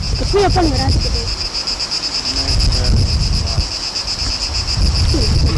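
Steady, high-pitched chirring of insects, with wind buffeting the microphone as a heavy rumble. Faint distant voices come through briefly near the start and again near the end.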